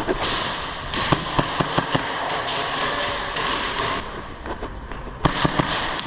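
Airsoft guns firing: a string of sharp pops about a second in and another quick burst near the end, over a steady rustling hiss.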